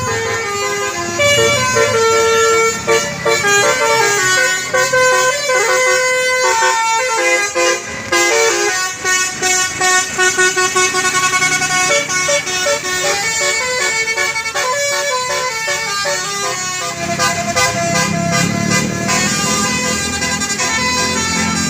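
A bus's Basuri 'telolet' multi-trumpet air horn playing a quick melody of stepped notes, several tones sounding together and changing every fraction of a second. Near the end the horn stops and the bus engine is heard instead.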